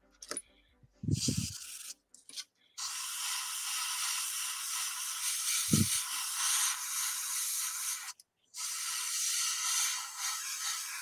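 Sanding stick rubbed along the plastic fuselage of a 1/72 scale model kit: a steady high scratchy hiss that breaks off briefly about eight seconds in. There is a short low bump about a second in and another in the middle.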